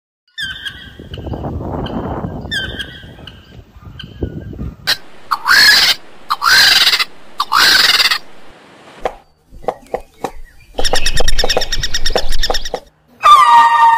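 A run of short animal calls. First come faint high chirps, then three loud harsh calls about a second apart, then a few clicks and a rapid rattling call. Near the end, a wavering, siren-like gliding call begins.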